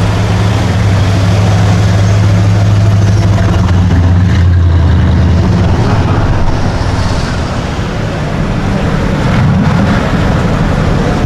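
A car engine running close by with a deep steady hum that drops lower about four seconds in and then fades.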